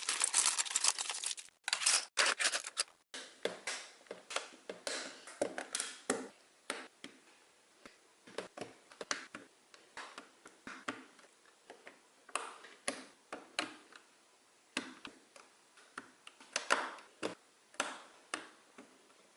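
LEGO plastic pieces being handled and clicked together: a dense plastic rustle for about the first three seconds, then scattered sharp clicks and short rattles as bricks are snapped into place.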